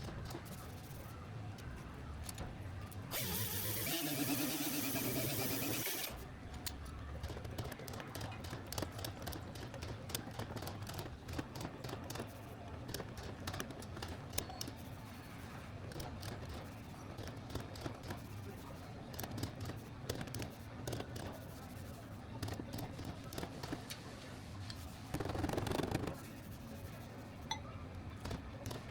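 Car-body metal work on a dented door: scattered light taps and clicks, with a few seconds of steady hissing noise about three seconds in and a shorter burst of noise near the end.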